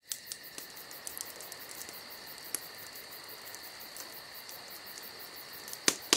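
Crickets chirping in a steady, fast pulsing chorus. A few sharp clicks cut through, the loudest two just before the end.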